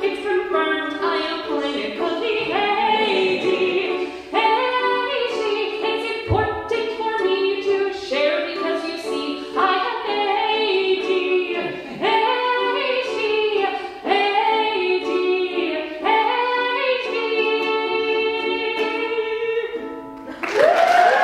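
A woman singing a song while strumming a ukulele, with several long held notes. Audience applause and cheering break out near the end.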